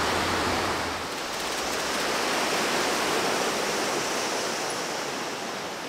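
Steady wash of ocean surf breaking on the beach, an even hiss with no distinct single waves.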